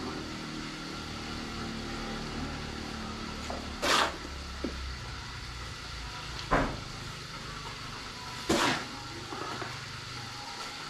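Three short, harsh noisy strokes about two and a half seconds apart, from hand work with cement mix, over a steady low hum.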